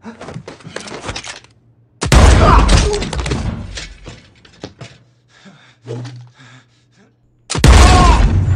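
Two loud gunshots, about two seconds and seven and a half seconds in, each with a long reverberant tail. Faint clicks come between them.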